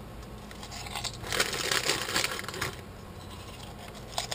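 Crunching of a thin, very crispy cracker being bitten and chewed close to the microphone, with a dense run of crackly crunches between about one and three seconds in.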